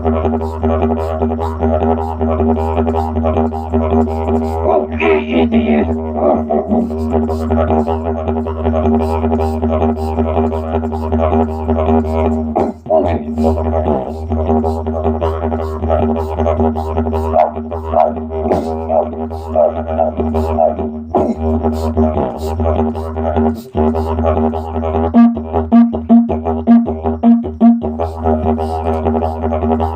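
Didgeridoo playing one unbroken low drone with shifting overtones above it. There is a brief higher, rising sound about five seconds in. Near the end the drone is pulsed in a quick even rhythm of about two beats a second, for a few seconds.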